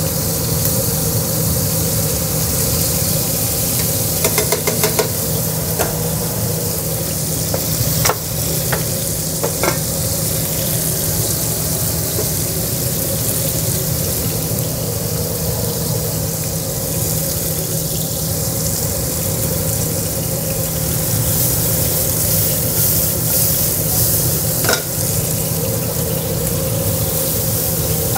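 Flank steak searing in olive oil in a hot non-stick pan, a steady sizzle, with a few sharp clicks of metal tongs.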